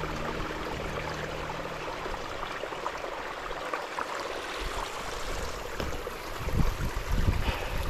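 Steady rushing of flowing water from a stream, an even hiss, with a few low thuds near the end.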